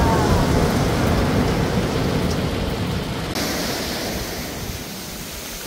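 Sea surf breaking and washing up a sandy beach: a steady rushing noise whose tone changes abruptly about three and a half seconds in, then slowly eases.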